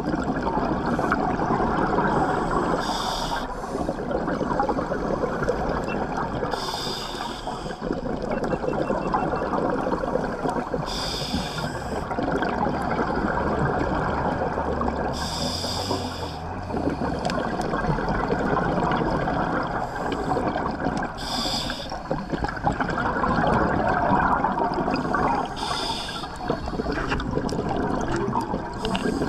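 Scuba diver breathing through a regulator underwater: a continuous bubbling rumble, with a hissing breath every four to five seconds.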